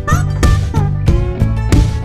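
Background music with guitar, a bending melody line and a steady beat.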